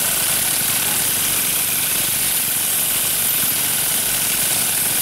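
Motorised pole-mounted olive harvester running with a steady engine drone and hiss, its spinning head working through the olive branches.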